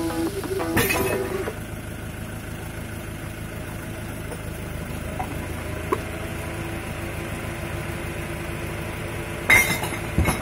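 Glass bottles and jars dropped through the porthole of a street glass-recycling bin, clinking and clanking inside it twice near the end, over a steady traffic hum. Music ends in the first second or two.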